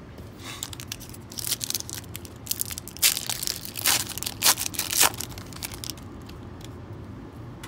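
Foil trading-card pack wrapper being torn open and crinkled by hand: a run of sharp crackles that is loudest in the middle and stops about five seconds in, leaving only a low steady hum.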